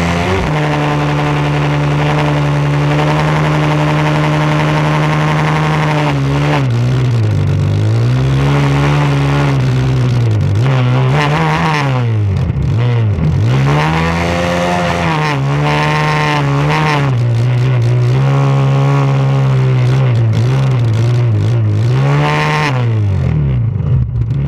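Engine of a modified John Deere lawn tractor running loud at high revs during a burnout. It is held steady for about six seconds, then repeatedly eased off and revved back up, its pitch swooping down and climbing again many times.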